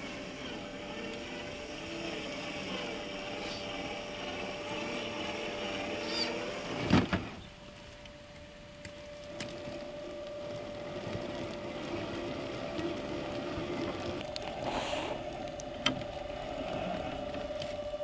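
Electric motor and gear drivetrain of an RC scale crawler truck with a Chevrolet Blazer K5 body whining as it crawls over the forest floor, its pitch rising and falling with the throttle. A loud knock about seven seconds in and a sharp click near the end.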